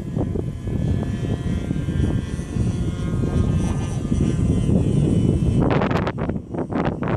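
Small engine of an RC model biplane running at a steady low throttle on a landing approach, its thin propeller drone half buried under heavy wind buffeting on the microphone. About five and a half seconds in the engine tone fades and sharp gusty bursts of noise take over.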